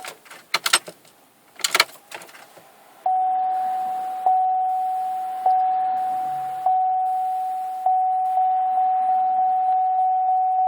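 Pontiac Aztek's dashboard warning chime: after a few sharp clicks, a single-pitched chime starts about three seconds in, repeating about once every second and a bit, then speeding up to two or three a second. The chime sounds for instrument-cluster warnings such as low fuel and service traction system on a car that will not start.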